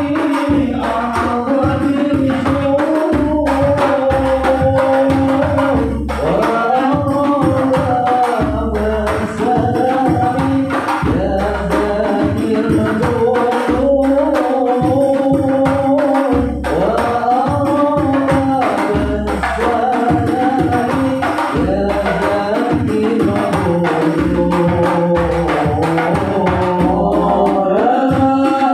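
Sholawat, Islamic devotional songs, sung by a voice with a bending melody over steady hand-drum percussion.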